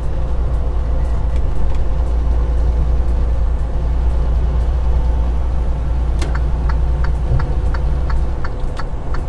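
Steady low drone of a semi-truck's diesel engine and road noise heard inside the cab at highway speed. About six seconds in, a quick regular ticking starts, about three clicks a second, typical of the cab's turn-signal indicator.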